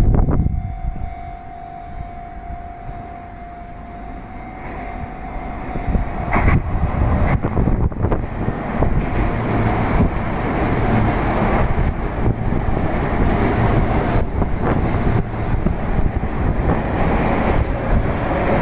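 Sotetsu 8000 series electric train running through a station without stopping: a steady tone sounds at first, then about six seconds in the train's noise rises sharply as it arrives and runs on loudly past, with repeated clatters of wheels over the rails.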